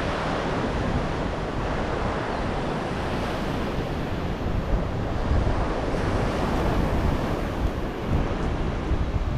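Wind buffeting the microphone: a steady rushing noise with uneven low rumbling gusts.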